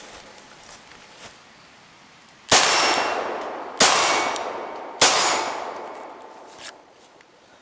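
Three shots from a Glock 17 9mm pistol, about a second and a quarter apart, each followed by a long ringing tail from a steel target being hit.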